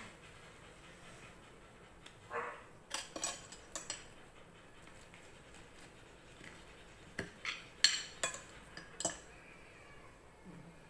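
A metal fork and spoon clinking and scraping against a ceramic plate while cutting up fried taro cakes, in two runs of sharp clinks, about three seconds in and again about seven to nine seconds in.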